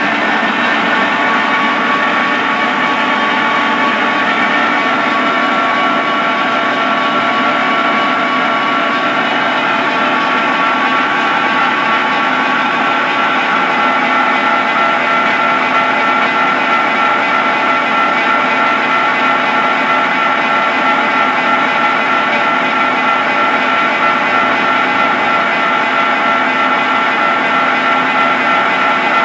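Barber-Colman 16-16 gear hobber running under power through its automatic cycle: a steady mechanical hum of motor and gear train with several held tones and no break.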